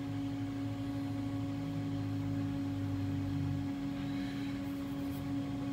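Steady hum of a Haas CNC machine: one constant tone with fainter overtones, and a lower drone beneath it that drops away about two-thirds of the way through.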